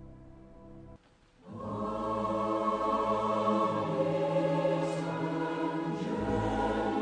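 Background music: a soft sustained passage drops away about a second in, then sustained choral singing swells in and holds.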